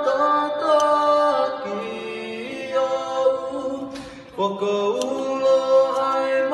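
A woman and a man singing a slow song together in harmony, unaccompanied, on long held notes that step from pitch to pitch; the singing dips briefly about four seconds in, then comes back.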